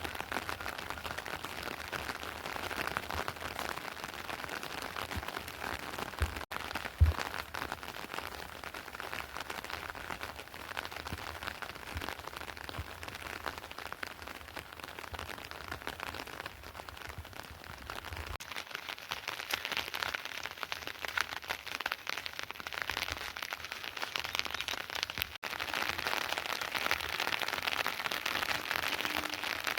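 Rain falling steadily, pattering on surfaces, with a couple of low thumps about six and seven seconds in. The rain grows louder near the end.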